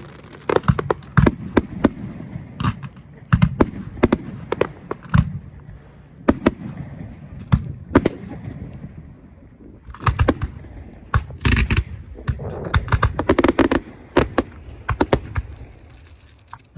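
Fireworks display going off: a long run of sharp bangs and crackles at irregular intervals, thickening into rapid clusters about ten seconds in and again toward the end.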